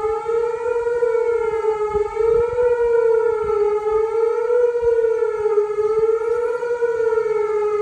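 Outdoor tornado warning siren sounding a steady wail, held at one pitch that wavers gently up and down about every second and a half.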